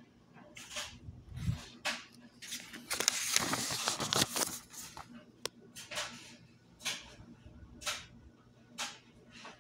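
A paperback book's page being turned: a papery rustle about three seconds in, lasting over a second, with short soft rustles of handling roughly once a second around it.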